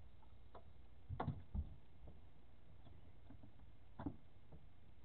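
Gear knocking and clattering as it is handled in a fishing boat's open storage compartment: a quick cluster of knocks a little over a second in and a single knock about four seconds in, over faint steady background noise.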